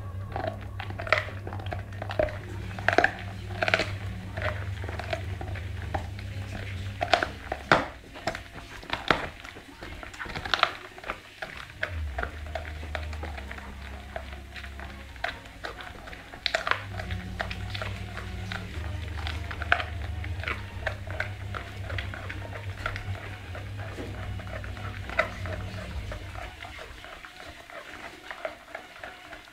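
American Pit Bull Terrier gnawing and crunching a raw, meaty bone: irregular sharp cracks of teeth on bone, sometimes several a second, loudest in the first half.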